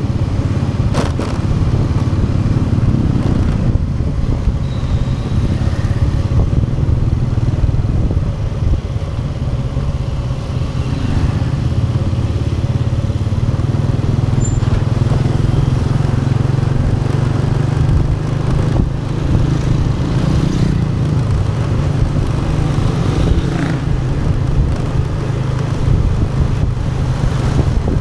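Motorcycle engine running steadily while riding, heard from the bike itself, mixed with wind rushing over the camera microphone as a steady low rumble.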